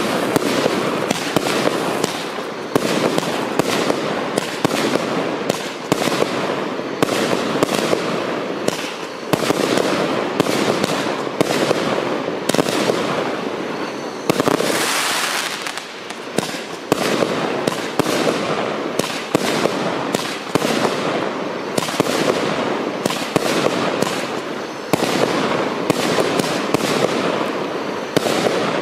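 Multi-shot firework cake firing shot after shot, with sharp launch and burst bangs about once or twice a second. A longer hissing rush comes around the middle.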